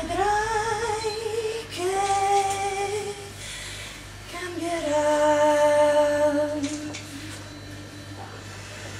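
A woman singing three long, wordless held notes; the first rises into its pitch, and the last sits lower and lasts longest.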